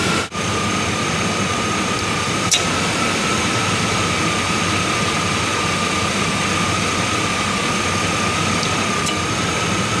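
1998 Chevy S10 Blazer's 4.3-litre V6 idling steadily with the A/C compressor engaged while the system is being charged, a steady high whine over the engine. A single tick sounds about two and a half seconds in.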